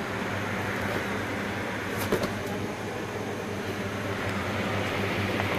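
Steady mechanical hum with an even hiss, and a few faint clicks about two seconds in.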